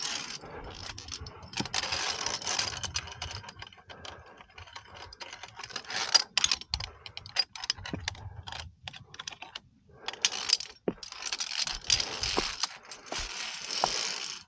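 Irregular metallic clicking and scraping of via ferrata gear: carabiners and hands working along the steel safety cable, in clusters with short pauses.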